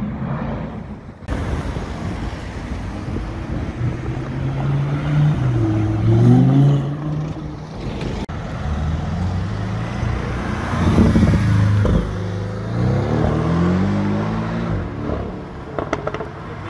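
Sports-car engines accelerating hard through city traffic: twice the engine note climbs in pitch through the revs and falls back at the gear changes, over steady street traffic noise.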